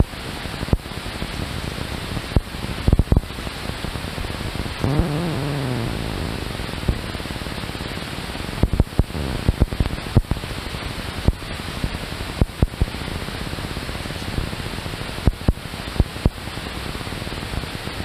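Steady rushing hiss of flowing creek water, broken by irregular sharp knocks and splashes as a hooked largemouth bass is fought at the surface, lifted out and handled.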